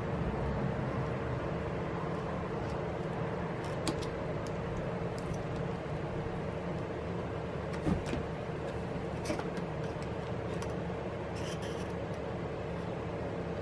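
A few faint clicks and taps of pry tools (spudgers) working under the glass edge of an iPad Pro screen and being handled, over a steady drone with a low hum.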